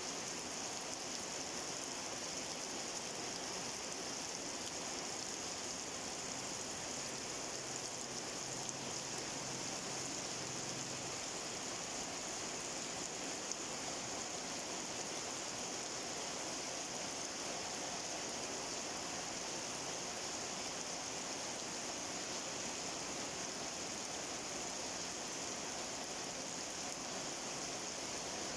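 Steady rain falling on garden plants and wet ground, an even, unbroken hiss.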